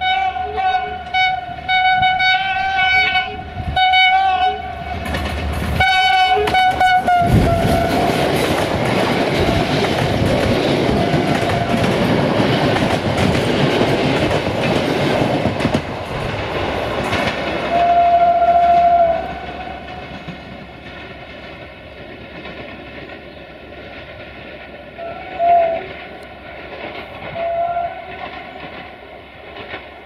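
Single-note horn of Romanian diesel-electric locomotive 64-1357-4 ('GM') sounding a rapid string of short toots and then a longer blast, followed by the train passing close by with the rumble and wheel clatter of its carriages. One long horn blast comes about eighteen seconds in and two short toots near the end as the train moves away.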